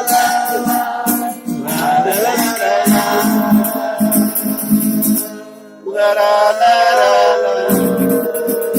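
Live singing of a Hindi song to a strummed acoustic guitar, with a shaker rattling along; a dip about five seconds in, then a long held sung note.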